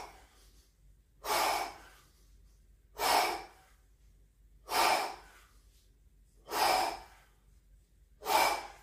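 A man breathing out hard in a steady rhythm, one short breath about every 1.7 seconds, five in all, in time with the strokes of Russian kettlebell swings.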